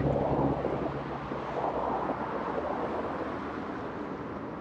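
Steady outdoor traffic rumble and hiss of city street ambience, easing slightly after the start.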